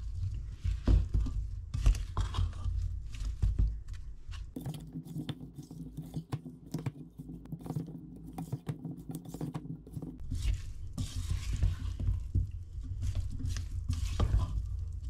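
Silicone spatula stirring parboiled new potatoes coated in grated Parmesan and oil in a stainless steel saucepan: irregular soft knocks and scrapes against the pan as the potatoes tumble.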